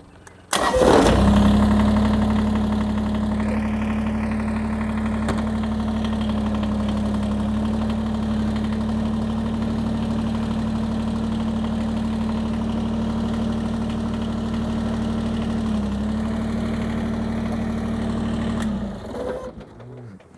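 Kubota BX compact tractor's three-cylinder diesel engine starting up and running at a steady speed, then shutting off near the end.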